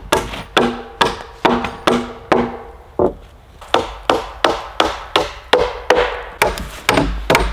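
Background music with a steady percussive beat, about two to three strokes a second, with short plucked-sounding notes.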